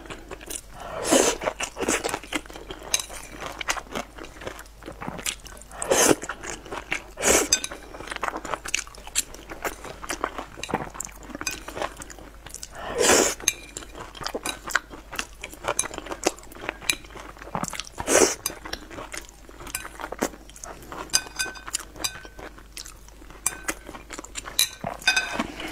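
Close-miked mukbang eating: steady wet chewing with chopsticks clicking and clinking against a ceramic bowl. Several louder mouthfuls stand out, about 1, 6, 7, 13 and 18 seconds in, and the clinks grow thicker near the end as the last bits are scraped from the bowl.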